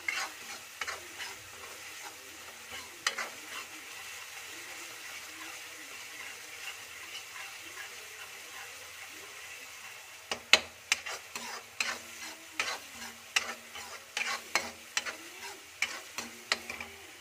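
Metal spoon stirring and scraping masala gravy in a black iron kadhai, over a steady sizzle of the masala frying. The spoon's clicks and knocks come now and then at first, then in a quick run from about ten seconds in.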